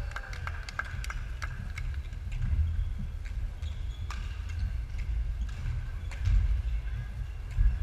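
Badminton rally sounds in a large sports hall: sharp, irregular racket strikes on shuttlecocks and footsteps on the wooden court floor, over a steady low rumble of the hall.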